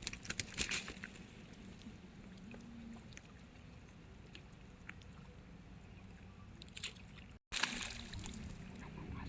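Water splashing and sloshing in short bursts in the first second, then faint low outdoor ambience with occasional small ticks, cut by a brief dropout near the end, after which the splashing noise picks up again.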